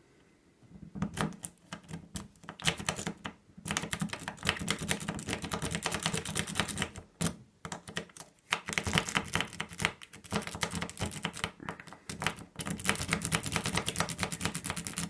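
Rake pick being scrubbed rapidly in and out of a wafer lock, a fast run of small metallic clicks as the rake skips over the wafers, broken by a few brief pauses. The lock does not open: the wafers won't set by raking.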